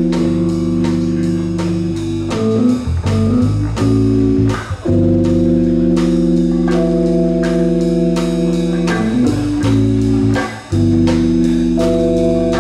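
Live band playing an instrumental passage: held keyboard chords that change every few seconds over electric bass, with drums and congas keeping a steady beat.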